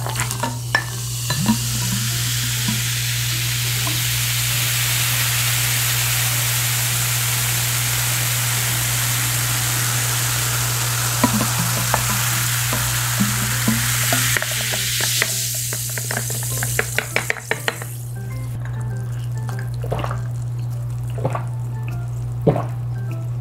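Zero-sugar lemon-lime soda (cider) poured from a plastic bottle into a glass over ice, fizzing with a loud steady hiss for about fifteen seconds. The fizz then breaks into scattered crackles as the bubbles settle. A few swallows near the end.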